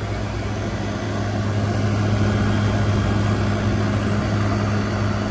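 2023 General Electric 5,000 BTU window air conditioner running on high cool: a steady low hum from the compressor, vibrating in the unit, over the even rush of the fan. It gets slightly louder about two seconds in.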